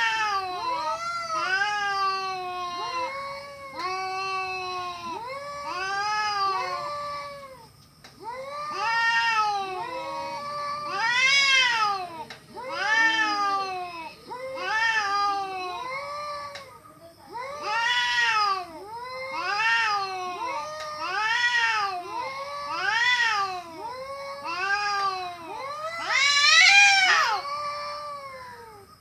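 A cat meowing over and over, about one meow a second, each call rising then falling in pitch; the loudest meow comes near the end.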